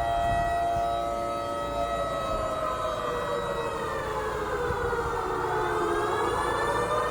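Civil-defence style siren sounding the 10 pm lockdown curfew. It is a continuous wail that slowly falls in pitch over several seconds and starts rising again near the end.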